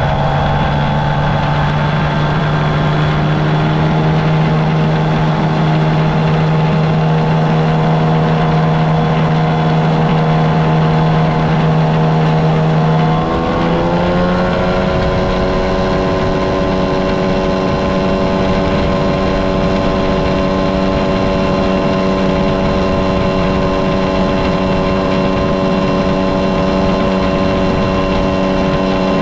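1999 Mercury 25 hp two-stroke, two-cylinder outboard running at high speed, with water rushing past the hull. About halfway through, its pitch rises quickly and then holds steady at the higher revs as the boat picks up speed.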